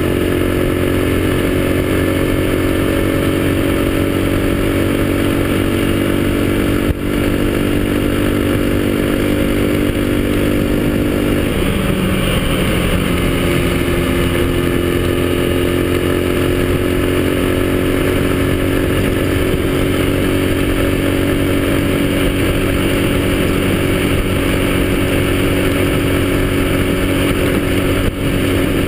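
Yamaha XTZ125 motorcycle's single-cylinder four-stroke engine running steadily under way. Its pitch shifts about twelve seconds in, then holds steady again.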